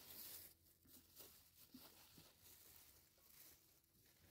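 Faint crinkling and rustling of a thin plastic sheet as soft dough is rolled up inside it, with soft pats of hands on the dough.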